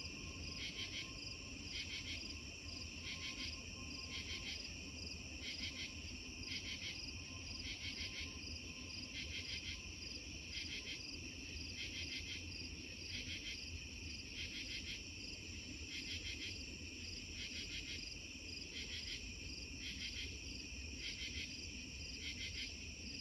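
Crickets chirping in a steady chorus, with an even rhythm of pulsed trills a little over once a second.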